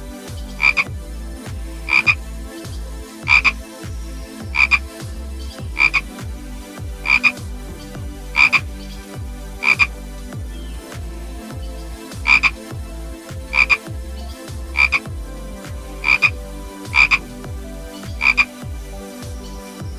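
A frog calling over and over: short, bright croaks at a regular pace of roughly one a second, over a steady low background noise.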